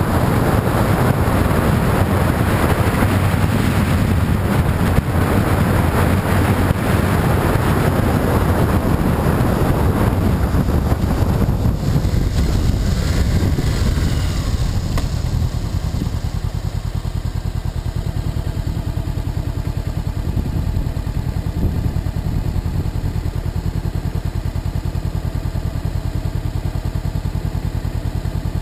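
Motorcycle engine running under wind rush while riding, then easing off about halfway through to a steadier, quieter low engine note as the bike slows and comes to a stop.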